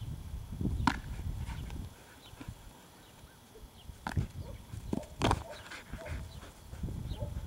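A Border Collie playing with plastic flying discs: a few short, sharp snaps and clicks, most of them clustered around its leaping mid-air catch, over wind rumbling on the microphone.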